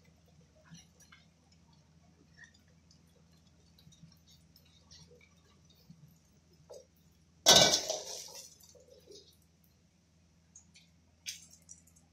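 Steel wok and metal spatula: one loud metal clang with a ringing tail about seven and a half seconds in, and a shorter sharp clink near the end. Between them is a faint low hum and a light steady hiss.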